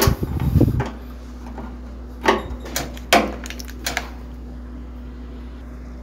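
Handling noise, then plastic clicks and snaps as a microwave's high-voltage fuse holder is prised open: two sharp snaps about two and three seconds in, with a few lighter clicks around them.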